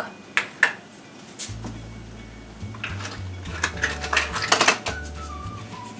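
Kitchen utensils and containers being handled: a few scattered clicks, then a busier run of clinks and knocks about three and a half seconds in, as a measuring scoop is fetched for a tub of powdered milk.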